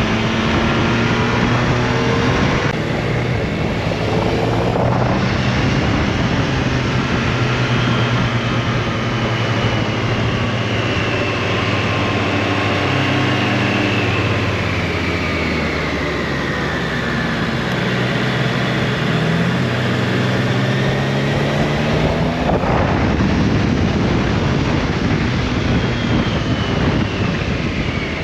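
Triumph Tiger Sport 660's three-cylinder engine running under way on a twisty road, its revs rising and falling through the corners, over steady wind and road rush.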